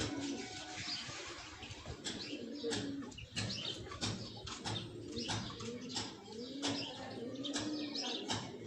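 Flock of young chickens clucking softly in repeated short, arching low calls, with many short sharp sounds scattered among them.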